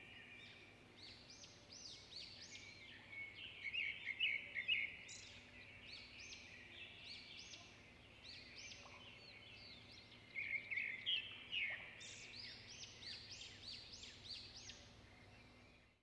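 Songbirds chirping and whistling: many short notes and quick arching phrases that overlap, busiest and loudest around 4 seconds and 11 seconds in, over a faint steady hum.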